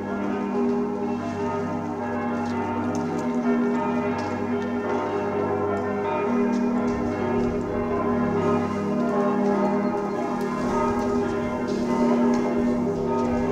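Several church bells ringing together in a continuous peal, their tones overlapping.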